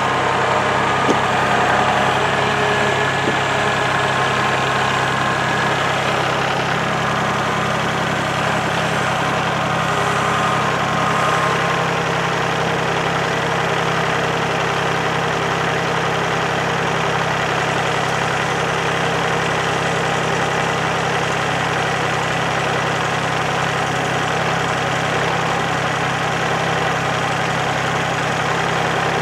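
Kubota L3901 compact tractor's three-cylinder diesel engine running steadily while its front loader works, the engine note shifting slightly about seven seconds in.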